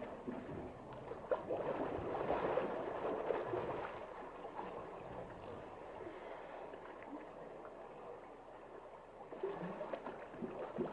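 Water gurgling and sloshing in a hippo pool, with many small crackling clicks. Louder in the first few seconds, with a few sharper knocks near the end.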